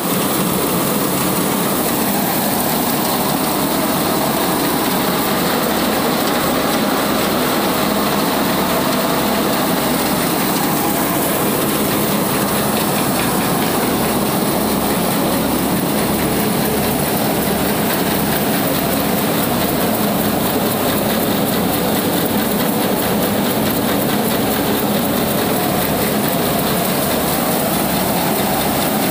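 Tractor-driven mobile rice mill running: the tractor engine and the hulling machinery make a steady, loud mechanical din with a low, regular pulsing underneath.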